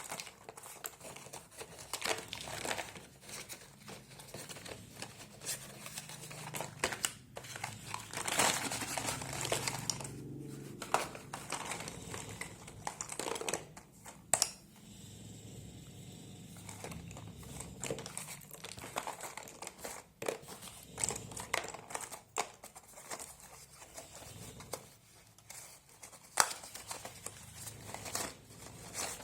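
Packaging of a box of slate pencils being handled and unwrapped: irregular crinkling and crackling with sharp clicks, dropping off for a couple of seconds midway.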